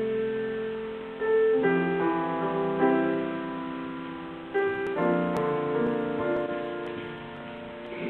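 Piano playing slow, sustained chords: a new chord is struck about a second and a half in and another about four and a half seconds in, each left to ring and fade.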